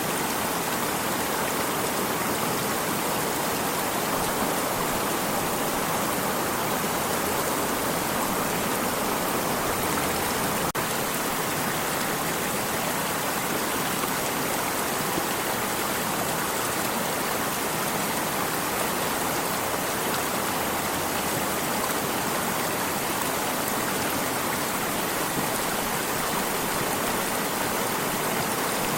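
Stream water flowing in a steady, unbroken rush.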